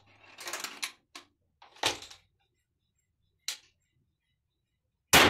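Metal clicks and rattles from an NX100 air rifle being handled, in a few short bursts. A loud, sharp crack comes near the end.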